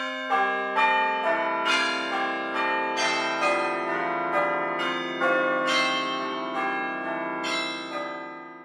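Apple ringtone of bell-like chimes: a melody of struck notes that ring on over one another, gradually fading toward the end.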